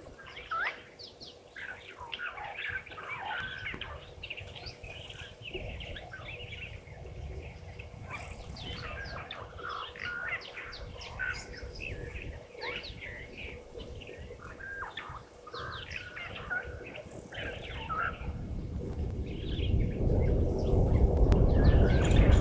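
Many short, high chirps and twitters from small animal calls overlap throughout, over a faint steady hum. A low rushing noise swells near the end.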